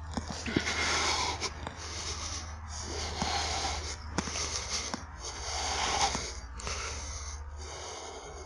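Close, heavy breathing of a person on foot, one noisy breath about every second. A few sharp cracks come between the breaths, over a steady low hum.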